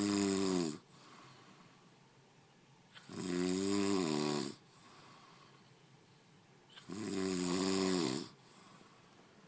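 A man snoring loudly in deep sleep: a snore trailing off at the start, then two more full snores about four seconds apart, each a rattling, buzzing rasp lasting about a second and a half.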